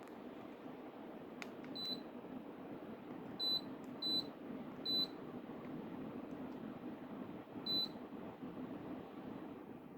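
Mabe TecInverter air conditioner giving short high beeps, five in all at uneven gaps, over the steady whoosh of its running fan.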